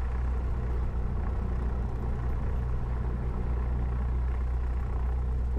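Cessna 172's piston engine and propeller running steadily at low taxi power, heard from inside the cockpit as an even, low drone.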